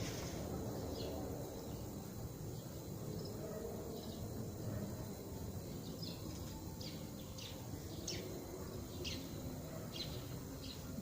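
A bird chirping: short, high, falling chirps that come about once a second in the second half, over a steady low background rumble.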